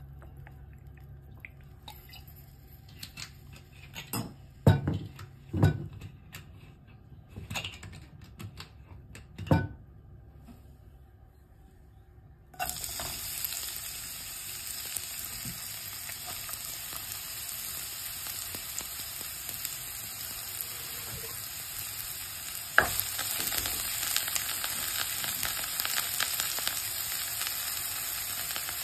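A few scattered knocks and clicks, then chopped red onion hits hot oil in a nonstick wok and a steady frying sizzle starts suddenly about halfway through, growing louder after a sharp knock near the end.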